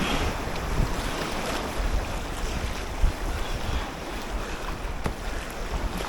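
River water rushing and splashing around a kayak, with wind buffeting the microphone and a few short sharp knocks.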